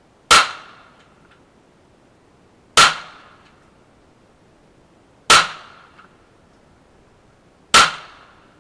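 Four single shots from a Canik TP9 9mm semi-automatic pistol, evenly spaced about two and a half seconds apart, each followed by a short ringing tail.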